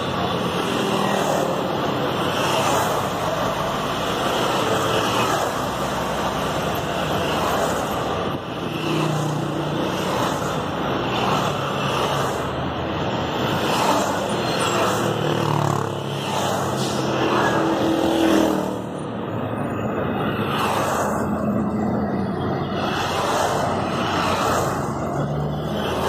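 Heavy, slow-moving highway traffic heard from a car: a steady rush of engines and tyres, with motorcycles passing close by between the lanes every few seconds.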